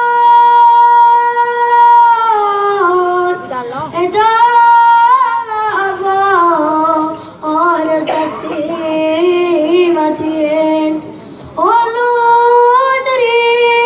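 A boy singing a devotional song to the Madonna dell'Arco into a handheld microphone, in a high voice. He opens on a long held note, then sings a winding, ornamented line that steps down in pitch, breaks off briefly near the end and sets in on another long held note.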